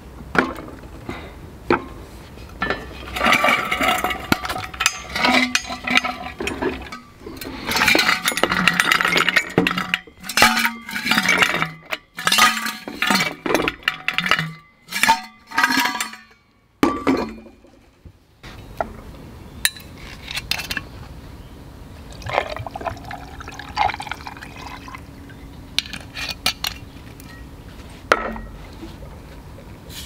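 Chunks of ice clinking and knocking into a thick glass beer mug, a long run of sharp clinks. Later, whisky is poured over the ice, with a faint rising filling tone.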